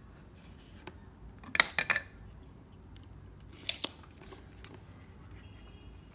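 Soldering tools being picked up and handled on a workbench: a quick cluster of sharp clicks and clatters about a second and a half in, then two more sharp clicks near four seconds.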